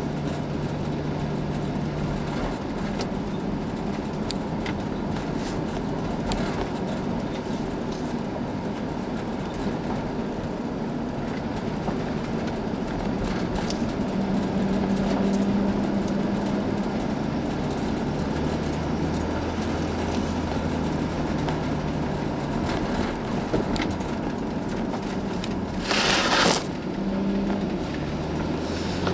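Car engine and tyre noise heard from inside the cabin while driving. A low engine hum steps up and down in pitch with speed. Near the end a brief, loud rushing noise cuts across it.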